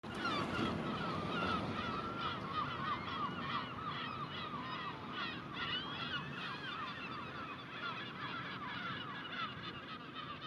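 A flock of birds calling: many short honking calls overlapping densely, slowly getting quieter.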